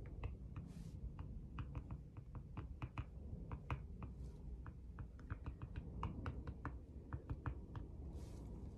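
Faint, irregular light taps and clicks of a small metal micro tool against a hard art panel, several a second, with a couple of short soft hisses about a second in and again near the end.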